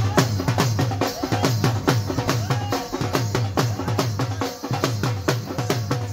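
Dhol drums beaten fast with sticks: deep booming bass-head strokes and sharp clicks from the treble side, several strokes a second in a driving dance rhythm.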